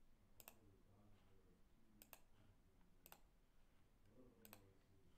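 Faint computer mouse clicks over near silence: four double clicks, spread over about four seconds.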